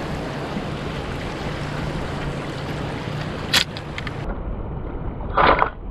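Steady sloshing of shallow seawater with wind on the microphone. A sharp click comes about three and a half seconds in, and a brief louder rush of noise comes near the end.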